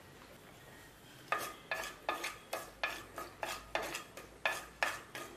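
A spatula stirring mustard seeds in hot coconut oil in a terracotta clay pot. From about a second in come about a dozen quick scraping strokes against the pot, roughly three a second, each with a short ring.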